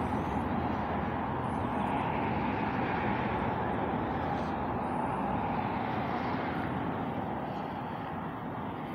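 A steady rushing noise of a passing vehicle, easing off slightly near the end.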